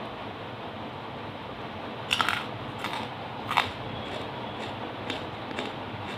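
A few sharp, irregular crunches of hard black lumps of coal being eaten, the loudest about two seconds in and again at about three and a half seconds, over a steady hiss.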